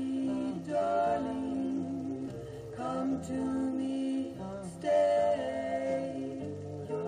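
A song with singing, played from a 7-inch vinyl single on a Graetz Grazioso record changer.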